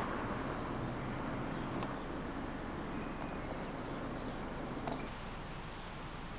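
Steady outdoor background hiss and low rumble, with a bird chirping briefly about four seconds in.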